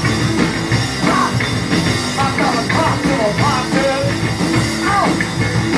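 Live rock band playing: drum kit, electric bass and electric guitar, with a male singer's vocals over them.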